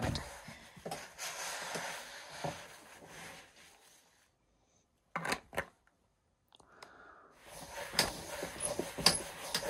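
Hands working at a plastic cutting board: rubbing and wiping with a paper towel, with a few sharp clicks and taps. The sound drops out entirely for about two seconds midway.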